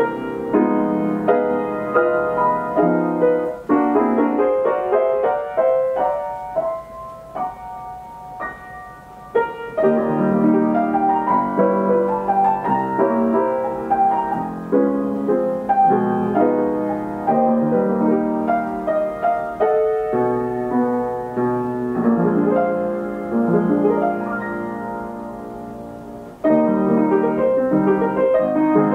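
Steinway Model S baby grand piano playing by itself from an Ampico B reproducing roll, heard in the room: a popular song in full chords. About a quarter of the way in it drops to a soft stretch, then swells back, and near the end it jumps suddenly back to full volume after fading.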